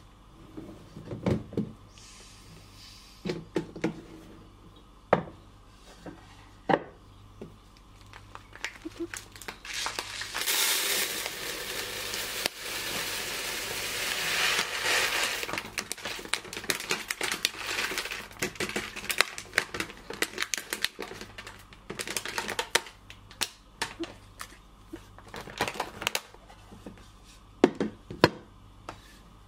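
Plastic bag of rice crinkling as it is handled, then about ten seconds in, dry rice grains pouring in a steady rush into a plastic storage container, thinning to a patter of trickling grains. Near the end, a few knocks as the wooden lid is set on the container.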